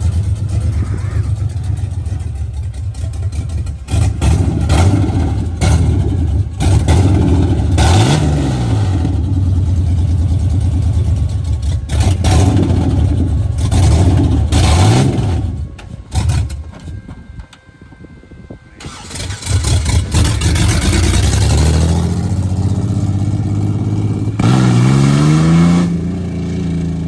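Ford Ranger race truck's engine running and being driven, revving up and down in several blips, fading briefly about two-thirds of the way in, then accelerating with a rising pitch near the end.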